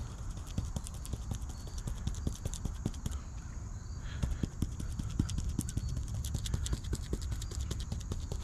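Resin being dabbed into fiberglass mat: a quick, irregular run of soft taps and pats, with a low steady rumble underneath.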